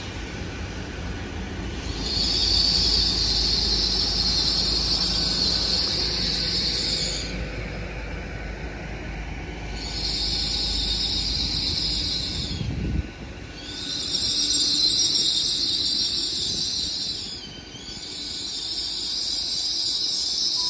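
Great Western Railway Hitachi Intercity Express Train moving slowly through the station with a low rumble, and a high-pitched wheel squeal that swells and fades several times. The rumble cuts off about two-thirds of the way through, while the squealing keeps coming and going.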